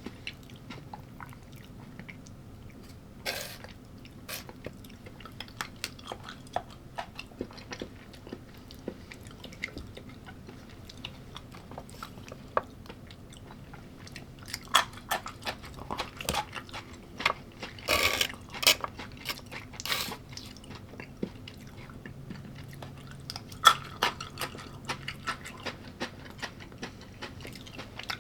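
Close-miked chewing and biting of food, with crisp crunches and small mouth clicks; the crunching grows denser and louder about halfway through.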